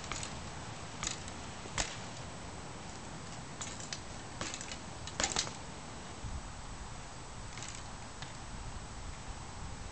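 Scattered sharp clicks and short rattles from a fixed-gear bicycle, with a front disc brake, as it is pivoted on its front wheel on concrete. The loudest cluster comes about five seconds in, over a steady hiss.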